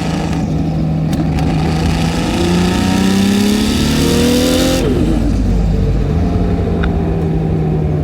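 HKS 2.8-litre stroker RB26 straight-six with a T04Z turbo in a Nissan Skyline R32 GT-R, heard from inside the car under acceleration. The engine note climbs for a few seconds with a rising rush of turbo hiss that cuts off suddenly about five seconds in, and the revs then drop back to a steady cruise. The pull comes on slow and laggy, not reaching full boost.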